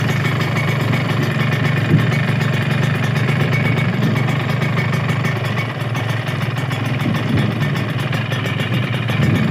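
Kawasaki Ninja 150's single-cylinder two-stroke engine idling steadily, just reassembled with a new connecting rod and crankshaft bearings and still being set up.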